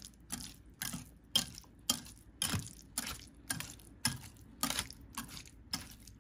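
Wire whisk mashing and stirring crumbled tofu in a ceramic bowl: a steady rhythm of about two strokes a second, each with a short click of the metal tines against the bowl and a wet squish.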